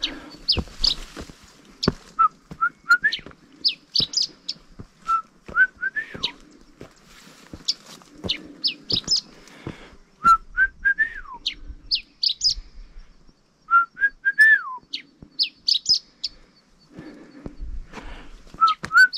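A small songbird singing quick, high, downward-sweeping notes, answered in turn by a person whistling a lower phrase of a few rising notes that slides down at the end. The bird and the whistler go back and forth about five times, like a whistling duel.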